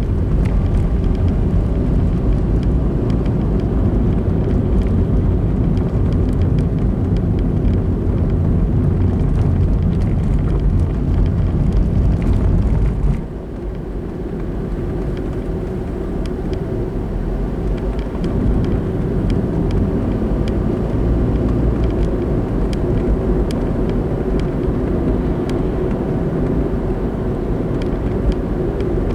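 Car driving on the road: steady tyre and engine rumble, picked up by the dashcam. It drops sharply about 13 seconds in, then builds back up gradually.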